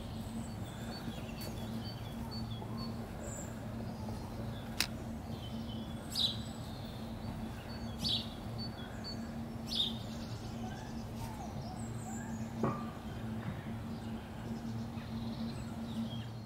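Small birds chirping now and then, short high calls every couple of seconds, over a steady low hum.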